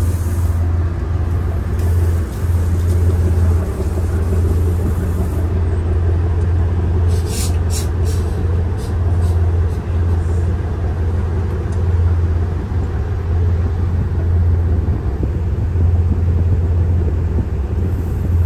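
A boat's engine running with a steady low drone, rising and dipping slightly in level. There are a few short light clicks about seven seconds in.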